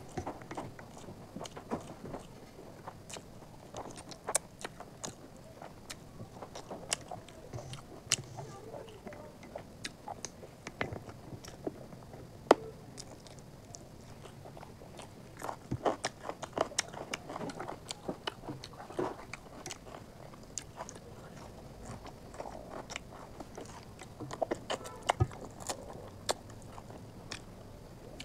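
Chewing and mouth sounds of a person eating chicken curry and rice by hand: irregular wet clicks and smacks, with one sharper click about twelve seconds in.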